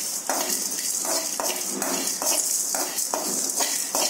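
A steel spoon stirring and scraping dry whole spices around an aluminium kadai, with repeated clinks and rattles of peppercorns and spices on the metal, about two or three strokes a second, over a steady high hiss.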